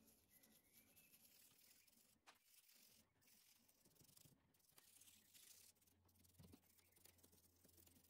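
Very faint scratchy scrubbing of a toothbrush brushing wet glue squeeze-out off the joints of a clamped wooden panel, with a faint low hum coming in about halfway through.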